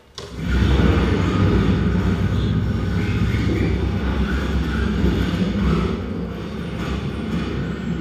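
Live electronic sound from a Kyma performance over loudspeakers: a dense, low, steady texture that comes in abruptly just after the start and holds, built from processed field recordings.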